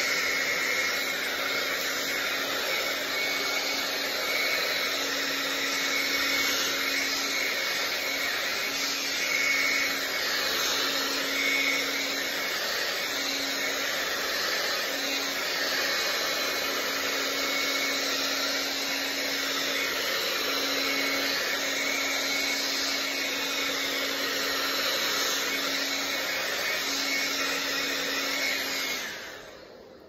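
Handheld hair dryer blowing steadily onto wet acrylic pour paint: a constant rush of air over a steady motor hum. It is switched off near the end.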